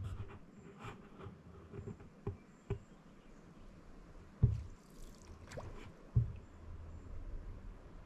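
Canoe being paddled on calm water: soft paddle strokes and scattered small knocks, with two louder hollow thumps against the canoe hull about four and a half and six seconds in.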